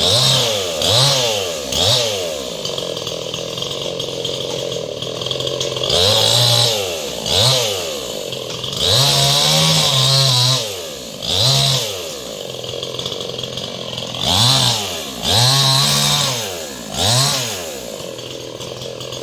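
Chainsaw idling and being revved up and back down again and again, about ten times, with one longer burst at full throttle about halfway through, as branches are cut up in a tree.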